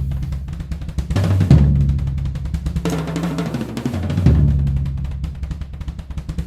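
Tour Custom drum kit being played: quick snare and tom strokes with heavy accents about one and a half and four seconds in, each leaving the low drums ringing.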